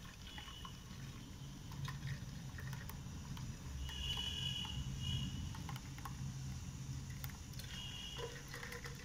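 Thick blended watermelon juice pouring from a mixer jar into a mesh sieve, a faint liquid pour, over a low steady hum.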